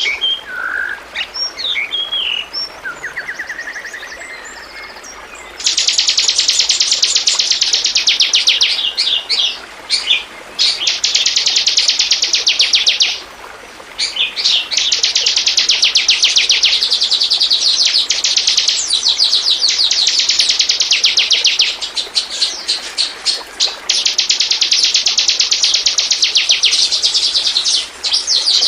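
Bar-winged prinia (ciblek) singing: a few scattered high chirps, then long, very fast, high-pitched trills that run for several seconds each, with short breaks between them.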